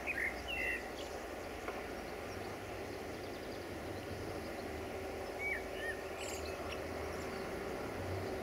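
Distant diesel locomotive running, a low steady rumble as the train approaches, with a steady hum coming in about halfway through. Small birds chirp briefly at the start and again about five seconds in.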